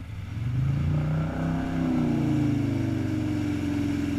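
X-35 wake boat's inboard engine accelerating from low speed to pull a wakesurfer up out of the water, its pitch rising over a couple of seconds and then holding steady at surfing speed.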